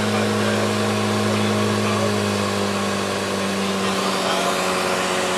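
Lake Renegade 250 amphibian's engine and propeller droning steadily, heard from inside the cabin on the approach to a water landing. About four seconds in, the low hum weakens.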